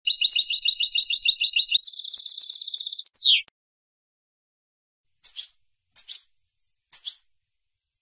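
European goldfinch singing: a rapid trill of repeated notes for nearly two seconds, running into a faster twittering phrase that ends on a falling note, followed by three short call notes about a second apart.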